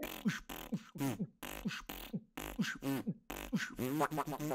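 Beatboxing: a fast, steady rhythm of deep kick sounds that drop in pitch, mixed with sharp clicks, about four hits a second.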